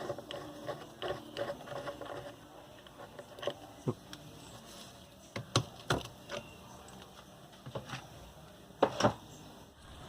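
Scattered metallic clicks and taps of a small bearing puller being fitted and tightened on a ceiling fan motor's shaft to pull off its 6201 ball bearing, with a pair of louder knocks near the end.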